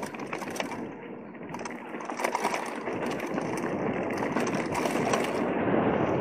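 Mountain bike running down a steep dirt-and-rock descent: tyres crunching over loose soil and stones while the bike rattles with many sharp clicks, growing louder toward the end.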